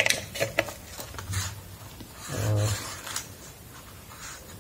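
Handling sounds of a mains plug and its wire being fitted into an extension reel's socket: a run of light plastic clicks and rubbing. A short low hum comes about halfway through.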